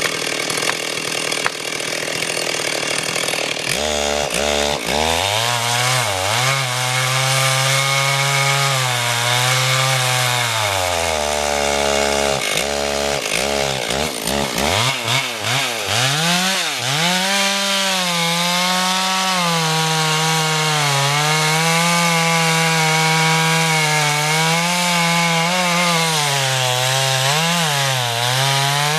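Stihl two-stroke chainsaw running hard and cutting into a poplar trunk. Its engine pitch sags under load and recovers, drops briefly twice in the middle, then climbs and holds high while the cut goes on.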